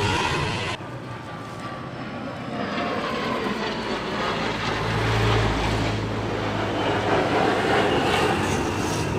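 Jet noise from a fighter jet flying past in the air: a loud, continuous broad rush. The highest hiss drops away abruptly about a second in.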